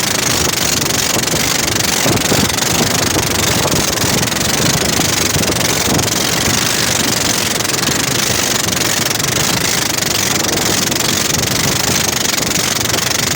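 Engine idling steadily with an aftermarket racing radiator fan running, a constant rushing sound with no change in speed.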